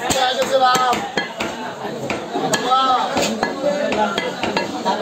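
Butcher's cleaver chopping goat meat on a wooden log chopping block: repeated sharp chops at an uneven pace.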